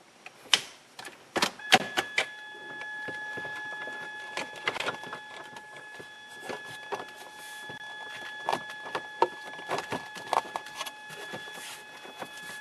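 Scattered plastic clicks, knocks and rattles as a car stereo and the plastic dash trim bezel around it are handled and pushed into place in the dashboard. From about two seconds in, a steady faint high tone sounds underneath.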